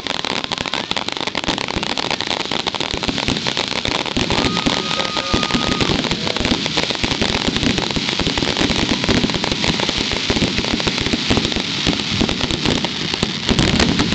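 Fireworks display: a dense, unbroken barrage of rapid crackling pops and bangs from glittering crackle shells.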